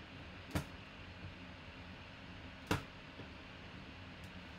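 Knife point punching and cutting into the wrapping around a baseball bat: two sharp snaps about two seconds apart, with a fainter tick near the end, over a faint steady hum.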